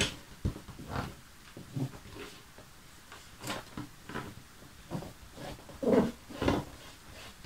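Fingertips rubbing and pressing on the taut skin of an inflated latex balloon as an adhesive sticker is smoothed onto it: scattered rubs and taps with short rubbery squeaks, the loudest two about six seconds in.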